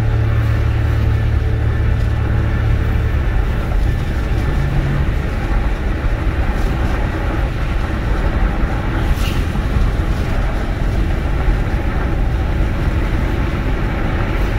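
Steady road and engine rumble of a car driving, with the end of a music track fading out in the first three seconds.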